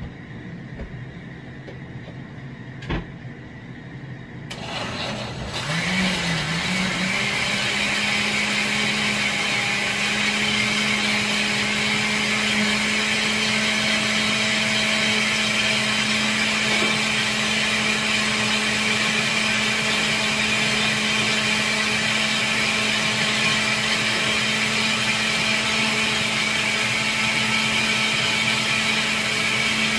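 Countertop blender switched on about four and a half seconds in: the motor winds up, wavers, then runs at a steady hum, puréeing tomatoes and garlic into a thin red liquid. A single click comes shortly before it starts.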